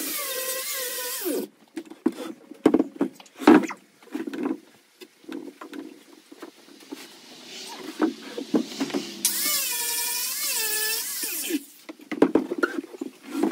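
A handheld power tool motor running in two spells, its whining pitch wavering up and down as it works against the wood. The first spell cuts off about a second and a half in and the second runs for a couple of seconds later on. Between and after them come knocks and clicks of wood being handled.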